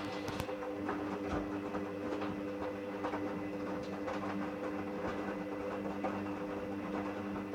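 Hoover Dynamic Rapid 30 washing machine's motor turning the drum during a rinse: a steady motor hum with a busy clatter of small clicks and rattles over it.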